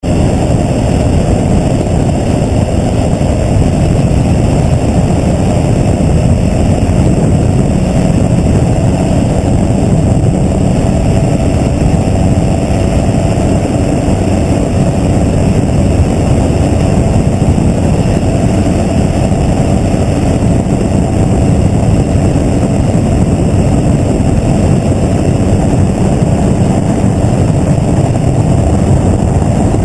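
Gyrocopter in cruise flight: the steady, loud drone of its engine and pusher propeller mixed with rushing air.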